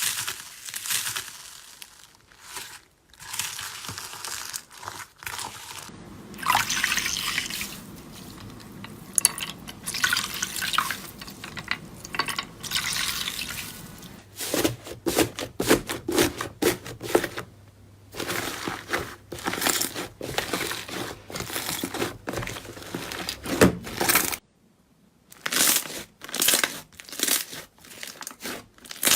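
Slime being squeezed, pressed and poked by hand: a dense run of quick sticky pops, crackles and squelches. The sound breaks off briefly about 24 seconds in, then resumes.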